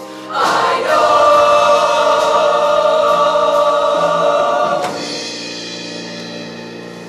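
Choir singing one long held chord over instrumental accompaniment; the voices cut off about five seconds in and the accompaniment rings on, slowly fading.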